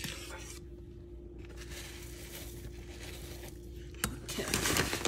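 A metal spoon stirring thickening oatmeal in a stainless saucepan, with soft scraping and clicking against the pot that grows busier about four seconds in, over a steady low hum.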